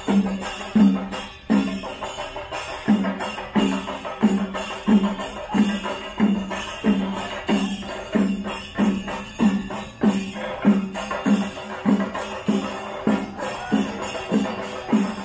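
Percussion-led music: a steady beat of pitched low drum strokes, about three every two seconds, with busier higher percussion over it.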